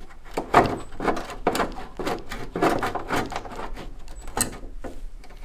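Dense, irregular clatter and knocking of hand tools and loose car body parts while a car bonnet is being unbolted and removed. The pace is quickened by a timelapse. A steady low hum runs underneath.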